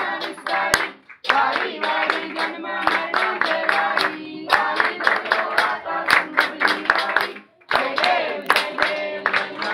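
A group of people singing a Ganesh aarti together to steady hand clapping, with two brief breaks between lines, about a second in and near the end.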